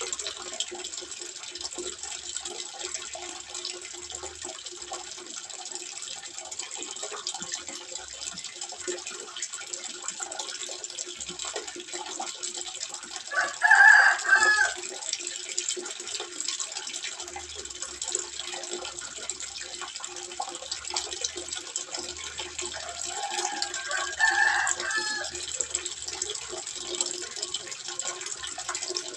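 Water trickling steadily into a small fish pond. A bird calls loudly twice over it, about halfway through and again near the end.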